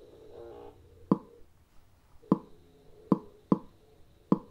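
Sharp single pops, each marking one cylinder firing in a slowed-down firing demonstration. Five pops come at uneven spacing, short, long, shortest, long, which gives the lopsided beat of one cylinder bank of a cross-plane V8.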